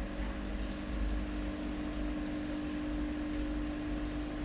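Steady hum of an aquarium pump, with one constant low tone over a faint hiss.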